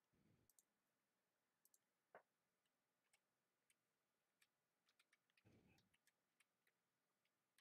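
Near silence broken by faint, irregular clicks of typing on a computer keyboard.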